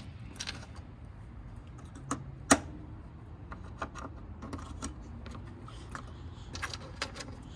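Scattered clicks and taps of plastic push-in retaining clips being handled and pressed into a car's front-end trim, with the sharpest snap about two and a half seconds in.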